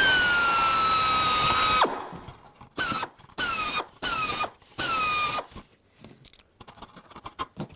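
Pneumatic drill enlarging rivet holes in sheet metal from a #40 to a #30 bit: one run of about two seconds whose pitch sags as it cuts, then four short bursts, each dropping in pitch as the bit bites. Light clicks of tools being handled near the end.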